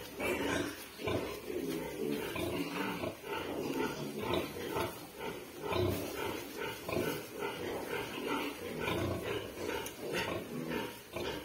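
A sow grunting over and over in a steady run while her young piglets suckle, with the piglets' small squeals and grunts mixed in.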